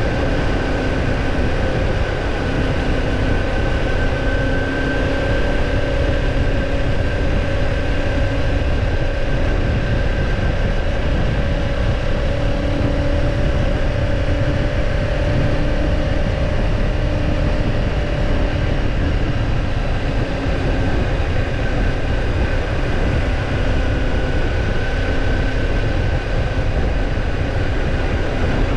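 Kawasaki Ninja 250 motorcycle riding at a steady speed: a continuous low rumble of wind and road noise with a steady engine drone underneath and no sharp changes in revs.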